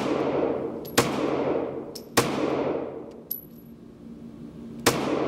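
Kahr PM9 9mm pistol fired three times, the shots about a second and then nearly three seconds apart, each with a long echoing decay. Faint metallic clinks sound between the shots.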